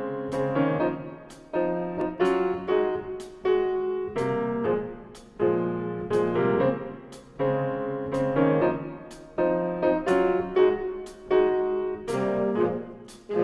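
Solo piano music: notes and chords struck one after another, every half second to a second, each ringing and fading before the next.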